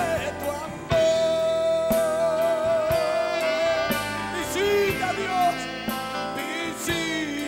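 Live church worship band playing a praise song, with electric guitar, keyboard and drums on a steady beat. A lead line holds one long, wavering note about a second in, then bends between notes.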